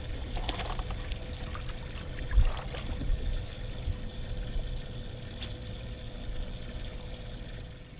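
Water trickling and splashing around a small fishing boat, over a steady low rumble and a faint steady hum, with a single knock about two and a half seconds in and a few light clicks.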